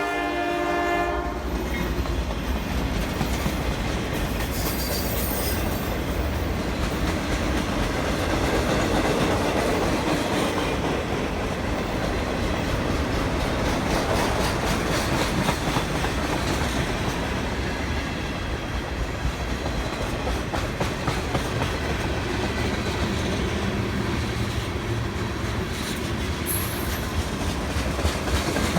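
A train horn sounding and cutting off about a second in, then a train running by with a steady rumble and wheel clatter on the rails.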